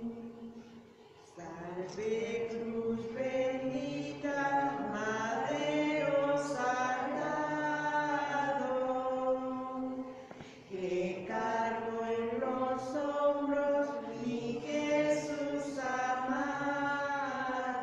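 Slow chanted hymn singing in long held notes on a single melody line, with breath pauses about a second in and again about ten seconds in.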